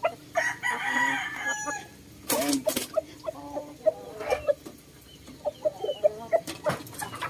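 Japanese Shamo chickens: a rooster crows for about a second and a half, then hens cluck in a run of short repeated calls. Two sharp knocks come a little past two seconds in.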